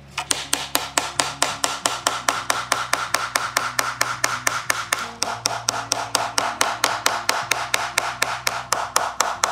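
Small hammer tapping rapidly and steadily on an old wooden board, about five strikes a second, each with a short ring.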